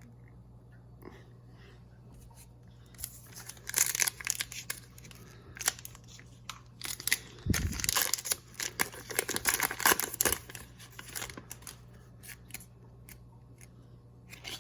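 Foil Pokémon booster pack wrapper crinkling and tearing as the pack is opened, in a run of rustling bursts over several seconds, with a low steady hum underneath.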